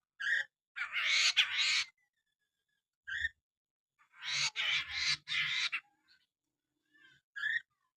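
Poksay mandarin, a laughingthrush, calling: short, clear, whistled notes, plus two loud, harsh, rasping chattering phrases about a second long, the first near the start and the second near the middle.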